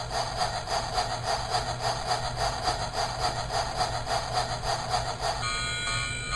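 Chinese toy train's sound effects: a rhythmic steam-engine chuffing, about three to four beats a second. About five seconds in it gives way to a ringing, repeating railway crossing bell.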